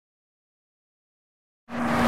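Dead silence, then about one and a half seconds in a loud rushing whoosh with a low rumble starts suddenly: the opening sound effect of a show's title sequence.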